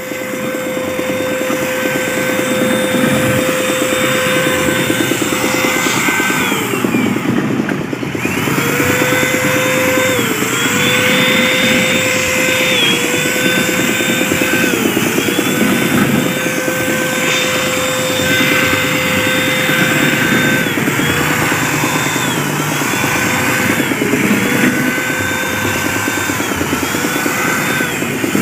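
Air compressor running to feed a paint spray gun, a steady motor hum whose pitch dips and recovers every second or two. The hum drops out briefly about seven seconds in, then starts again.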